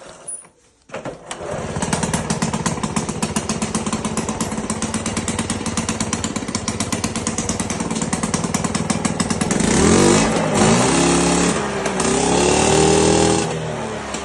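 Piaggio Grillo moped's small two-stroke engine catching about a second in and running with a fast, even beat. About two-thirds of the way through it is revved up and down several times, then it drops back to idle near the end.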